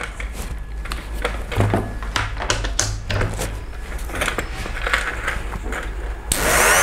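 Small clicks and taps of hands working the flexible-shaft handpiece of an Ingco rotary tool (mini grinder), then a little over six seconds in the tool switches on with a high whine.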